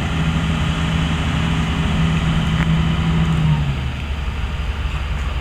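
Heavy diesel engine running steadily. Its steady low note drops away about three and a half seconds in, as the revs come down.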